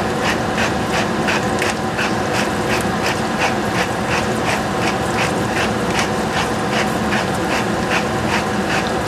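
Pepper mill being twisted over a pan of sliced onions, its grinding mechanism clicking evenly about three times a second over a steady hum.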